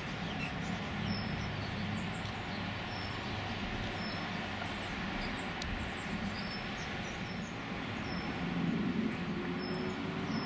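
Steady low outdoor rumble, swelling slightly near the end, with faint short high chirps scattered through it.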